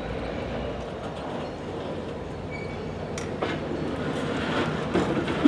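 Freight train's covered hopper cars rolling past on the rails during a switching move: a steady rumble of steel wheels on track, with a few clicks and clanks from about three seconds in, growing a little louder toward the end.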